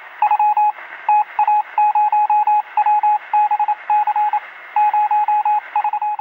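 An electronic beep of one steady pitch keyed on and off in irregular short and long beeps, some in quick runs, over a steady hiss of static, like a radio signal.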